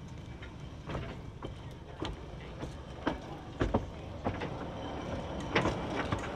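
2 ft gauge battery-electric locomotive rolling slowly over rail joints and pointwork, its wheels giving irregular clicks and knocks over a low rumble that grows louder as it approaches.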